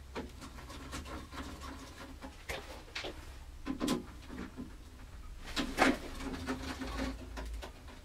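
Scattered small clicks and scrapes of the side-panel screws being undone at the back of a steel desktop computer case.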